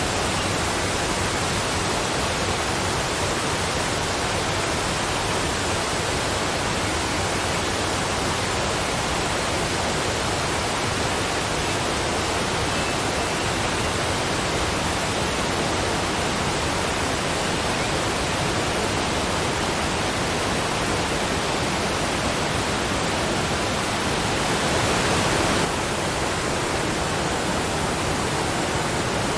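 Waterfall: water falling in a steady, even rush, a little louder for about a second near the end.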